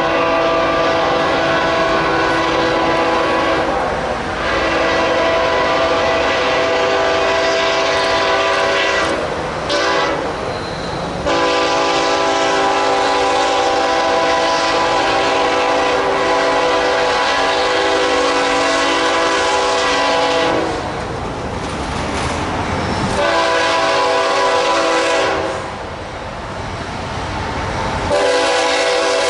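Locomotive horn sounding a chord of several tones in a series of long blasts, the longest held for about nine seconds, with short breaks between them where the noisy rumble of the train running on the rails comes through.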